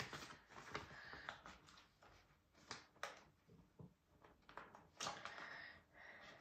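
Near silence broken by faint, scattered clicks and soft rustles of a paper sticker sheet being handled as a sticker is picked at; it is stuck fast and won't peel off.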